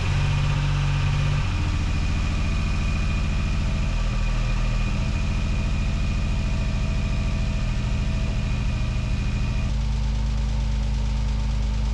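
Hyundai Tiburon's 2.7-litre V6 idling smoothly with a top-end tick still there. The owner takes the smooth idle as the misfire cured by fitting the correct 1-volt O2-sensor ECU; he thinks the ticking is a separate problem.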